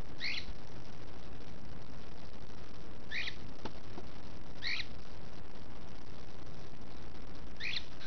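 Cockatiel giving four short, high chirps spread over several seconds, over a steady background hiss.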